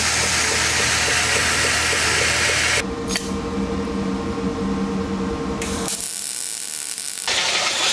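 Metal shop work sounds cut together in quick succession: a dense mechanical noise with a low hum, then a small motor running at a steady pitch for about three seconds, then a welding arc crackling for about a second near the end.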